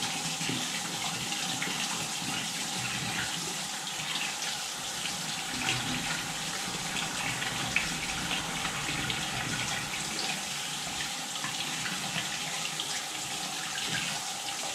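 Kitchen tap running steadily and splashing over a baitcasting reel's body turned under the stream: a fresh-water rinse to wash sea salt out of the reel.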